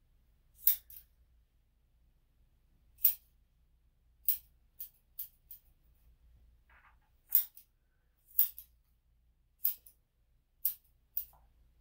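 Grooming scissors snipping the hair around a small dog's paw: about a dozen separate sharp snips at uneven intervals, some in quick runs of two or three.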